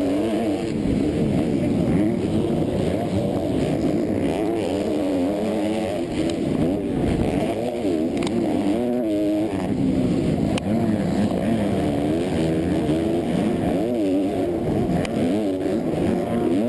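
Motocross bike engine heard from on board under race load, revving up and down over and over as the rider works the throttle and gears, its pitch rising and falling every second or two.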